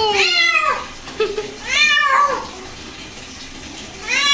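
White cat meowing in protest while being soaped and bathed. Three drawn-out meows that rise then fall in pitch: one trailing off in the first second, another about two seconds in, and a third starting near the end.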